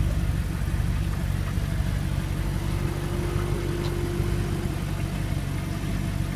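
The 2009 Audi R8's 4.2-litre V8 idling steadily, a deep even hum, with a faint higher whine for about two seconds in the middle.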